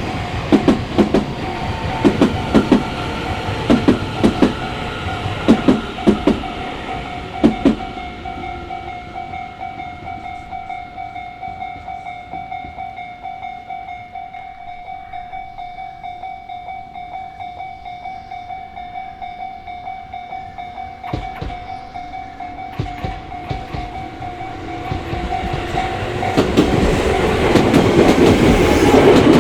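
Japanese level-crossing warning alarm sounding steadily while a Tobu Tojo Line train runs over the crossing, its wheels clacking over the rail joints for the first several seconds. The train noise dies down, then rises again near the end as another train approaches and gets loud.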